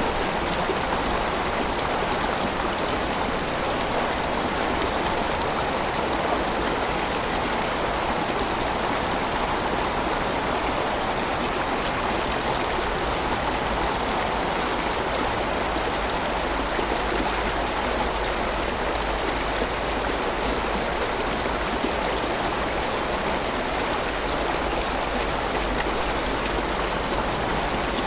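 Small woodland brook running over a low drop: a steady rush of water.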